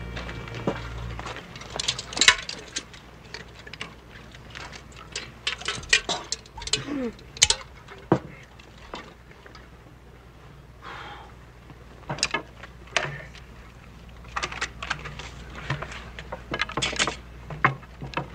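Scattered clinks, knocks and rattles of tin cups and bottles being handled and set out on a table, coming at irregular intervals over a low steady background hum.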